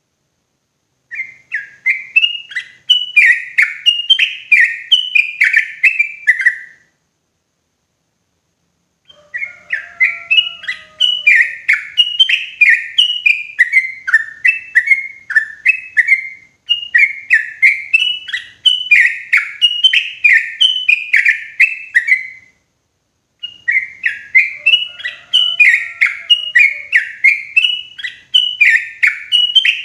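Yellow-vented bulbul (trucukan) singing: loud, clear runs of quick bubbling notes, in four bouts separated by short pauses.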